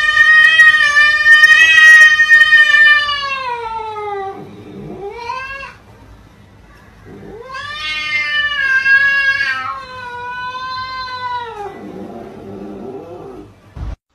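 Cat yowling in long, drawn-out howls: one of about four seconds that falls in pitch at the end, a short cry, then a second long howl that trails off lower.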